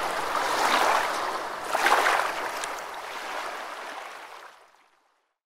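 Rushing, splashing water. It swells twice, about a second apart, then fades out near the end.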